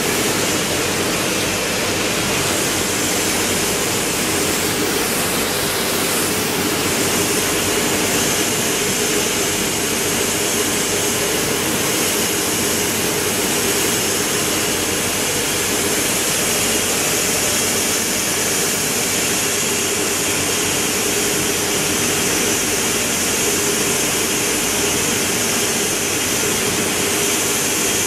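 Heidelberg Speedmaster SM 102 sheet-fed offset press running steadily: an even mechanical whir with a low hum underneath, no change in speed.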